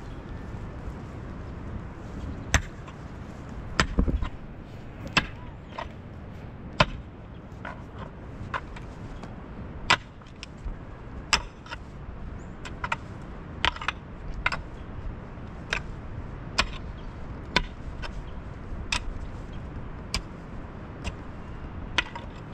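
Repeated sharp strikes, about one a second and unevenly spaced, over a steady background noise, the sound of chopping or striking with a hand tool.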